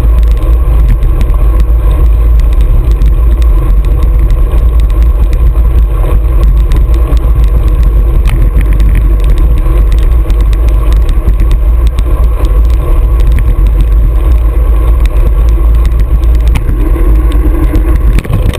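Road bike riding on a wet asphalt path, heard through a camera clamped to the handlebars: a loud, steady low rumble of wind and road vibration, with scattered short knocks from bumps in the surface.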